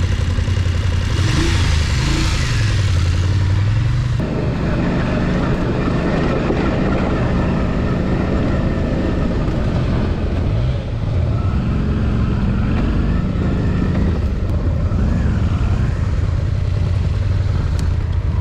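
Motorcycle engine running at low speed on rough off-road ground, its pitch dipping and rising as the throttle opens and closes. There is a brief rushing hiss about a second in.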